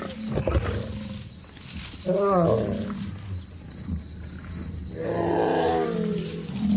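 Lions growling while attacking a buffalo herd, with two longer drawn-out calls, one about two seconds in and another about five seconds in.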